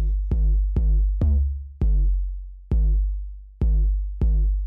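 Electronic intro music: a drum-machine beat of about eight heavy bass hits in an uneven, syncopated rhythm, each with a pitched tone that rings and fades before the next.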